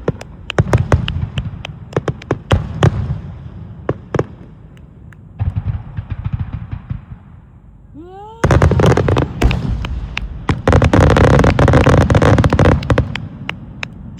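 Starmine fireworks display: a run of sharp aerial shell bursts, then a rising whistle about eight seconds in, followed by a dense barrage of bursts and crackling for about four seconds that thins out to scattered cracks near the end.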